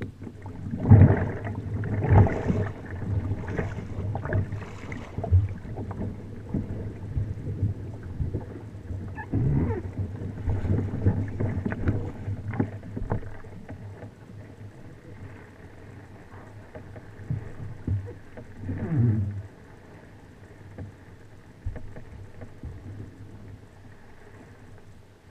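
Double-bladed kayak paddle stroking through lake water, each stroke a splash with drips off the blade. The strokes come in irregular bouts, busiest in the first few seconds and again around ten and nineteen seconds in, then fewer and softer near the end.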